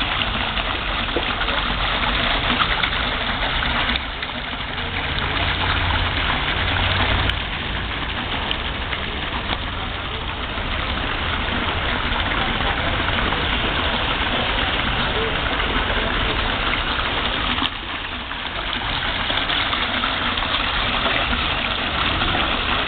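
Garden pond fountain: a water jet splashing steadily into the pond, a constant rushing.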